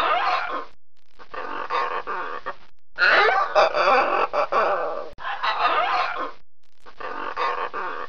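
Red macaw calling: repeated loud squawks in about five bursts, with short pauses between them.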